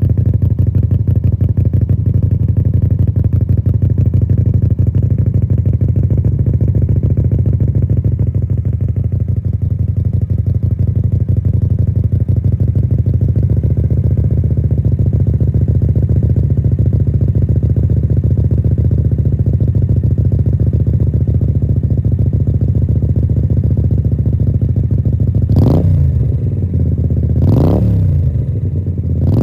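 Suzuki Intruder 250LC's 250 cc V-twin idling steadily through an open-ended Motorstage silencer made for the Harley V-Rod, fed by a home-made two-into-one mid-pipe. Near the end the throttle is blipped twice, the revs rising and falling each time.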